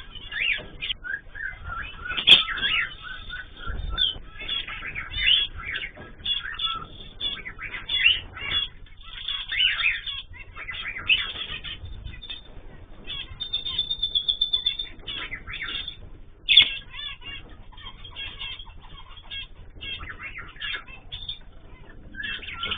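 Many small cage birds chirping and calling over one another, with a fast trill partway through and a couple of sharp clicks.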